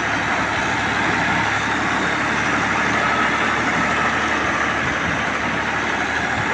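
New Holland farm tractor's diesel engine running steadily as the tractor is driven across a field, heard close up.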